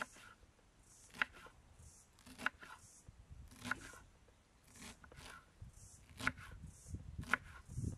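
A knife chopping on a cutting board in slow, even strokes, about one a second.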